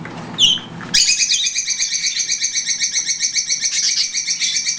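Lovebird calling loudly in a rapid, unbroken string of repeated chirps, several a second. The string starts about a second in and lasts nearly four seconds.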